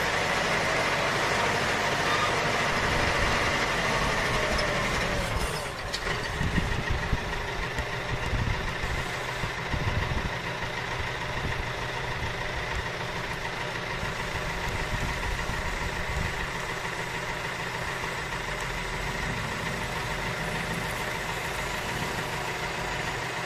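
Steady motor sound running throughout, with a constant whine, shifting about six seconds in with a click, then going on with an uneven low rumble.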